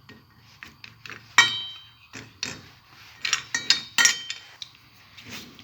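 Date pits being stirred while roasting in a pan: irregular clinks and scrapes of the stirring utensil against the metal pan, some strikes ringing briefly.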